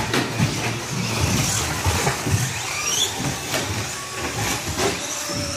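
Radio-controlled 2WD short-course trucks racing on a carpet track: electric motors whining and rising in pitch under acceleration about halfway through, over a steady hiss of tyres on carpet, with repeated knocks and clatters from trucks landing jumps and hitting the borders.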